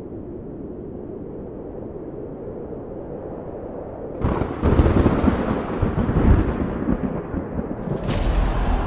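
Film sound effects: a steady low rumble, then about four seconds in a sudden loud explosion-like blast that rumbles on for a few seconds and fades, with another sharp hit near the end.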